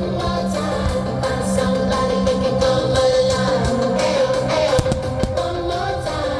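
Loud music with singing and guitar, the soundtrack of a fireworks display, with a few sharp cracks of fireworks going off just under five seconds in.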